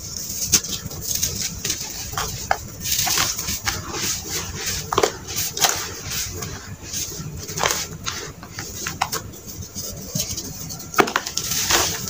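Hands crumbling and rubbing dry red sand close to a clip-on microphone: gritty rustling dotted with many small, sharp crunches and crackles.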